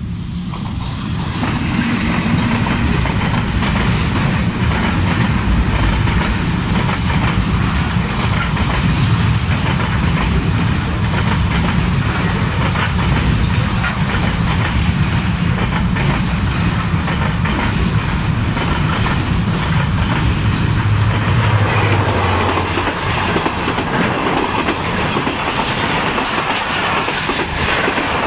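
Trains passing at speed, first container freight wagons and then passenger coaches, their steel wheels clattering over the rail joints in a steady loud rumble that builds up about a second and a half in.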